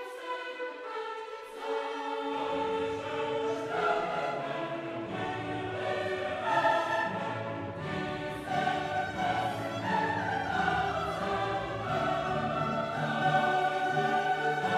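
Background choral and orchestral music with voices holding long notes; a low bass part comes in about two seconds in.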